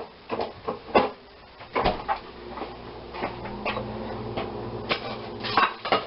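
Kitchen clatter: scattered knocks and clicks of cookware and utensils being handled at the stove. A low steady hum comes in about three seconds in.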